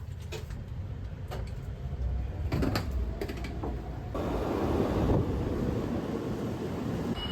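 Steady low rumble of a moving vehicle, with a few sharp clicks and knocks in the first half and a louder rush of noise for about a second in the middle.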